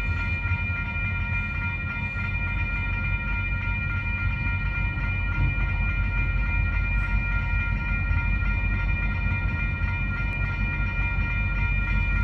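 Level crossing warning bell ringing continuously, a steady high repeating ring, over the low rumble of a diesel locomotive approaching slowly with a freight train.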